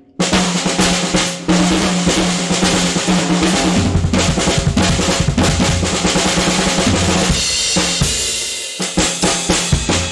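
Rebuilt solid-wood stave snare drum played hard in a drum kit, with rapid snare strokes and rolls over bass drum. The recording is loud and clipped. The playing starts up again just after the start and eases off briefly about eight and a half seconds in before carrying on.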